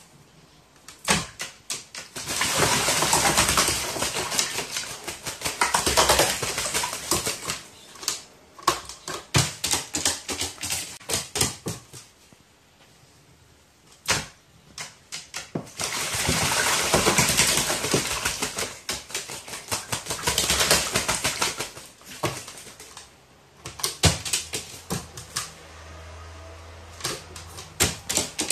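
A crow bathing in a plastic basin of water, beating its wings to splash in bouts of a few seconds each with short pauses between.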